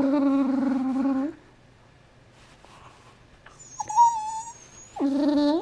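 Dog growling over a chew bar it is guarding: a long, steady growl at the start, a short high whine about four seconds in, and another growl starting near the end.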